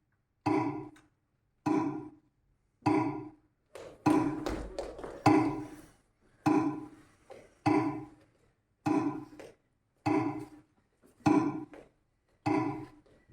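A resonant tapping sound repeated at an even beat, about once every 1.2 seconds, each hit dying away quickly; around four to six seconds in, the hits crowd together and grow louder.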